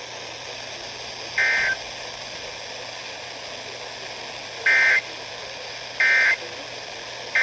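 NOAA Weather Radio SAME digital data bursts: short two-tone data bursts heard four times, the last three about a second and a bit apart, over the steady hiss of the radio reception. They mark the end of the weather radio test message (the end-of-message code).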